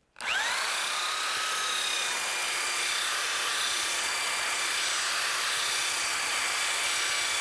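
Handheld electric belt sander switched on, its motor whining up to speed within a fraction of a second. It then runs steadily with its abrasive belt sanding the face of a maple cutting board.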